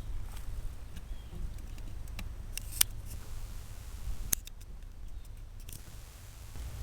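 Sharp metallic clicks from handling a Stevens Model 320 12-gauge pump shotgun while a shell is loaded, over a low steady rumble. One cluster of clicks comes a little under three seconds in and another a second and a half later.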